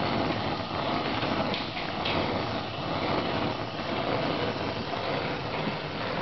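Wolf range's front gas burner running on high: a steady rushing flame noise.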